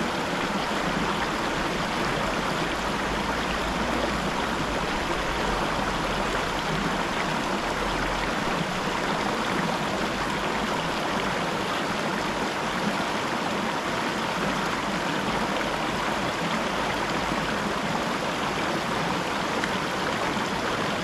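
Small rocky mountain stream running over stones in a steady rush of water.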